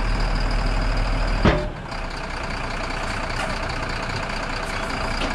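Heavy vehicle engine running steadily, with a thin high whine over it. There is a single knock about one and a half seconds in, and the sound eases slightly soon after.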